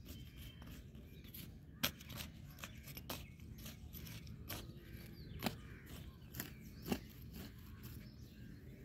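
Metal hand hoe blade chopping and scraping into dry, cracked soil, breaking up clods while weeding, in repeated irregular strokes about one or two a second. The sharpest strikes come about two seconds in, at about five and a half seconds and near the end.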